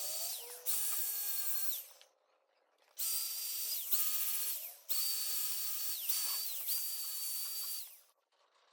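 Handheld power tool, like a drill, run in several short bursts of one to two seconds, its steady high whine falling away each time it is let off.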